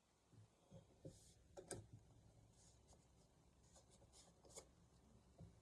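Near silence: room tone with a few faint soft taps and rustles.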